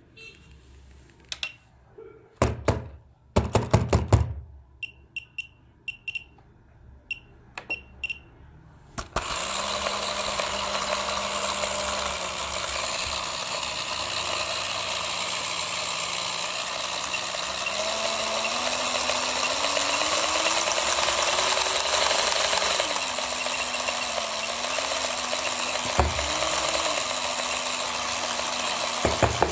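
Electric toy's small motor and gears whirring with a rattling noise, starting about a third of the way in; its pitch climbs slowly as the supply voltage is turned up, then drops back and holds steady. Before it starts there are a few clicks, knocks and short beeps.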